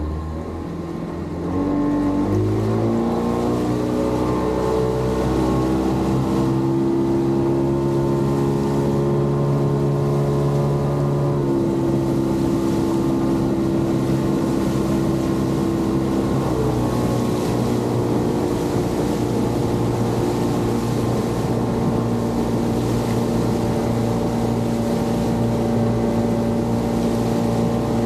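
Motorboat engine speeding up about two seconds in, then running steadily at cruising speed, its pitch easing down slightly around the middle.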